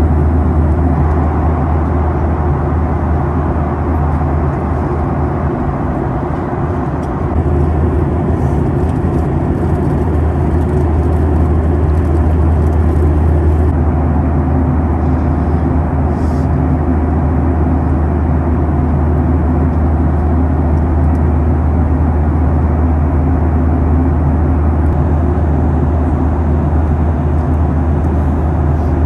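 Cabin noise of a Boeing 737-800 in flight: a steady low drone of airflow and its CFM56-7B turbofan engines, with an even rushing hiss above it.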